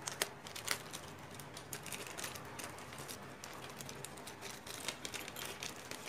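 Faint clicking and light rustling of small packaging being opened and handled by hand, with a few sharper clicks in the first second.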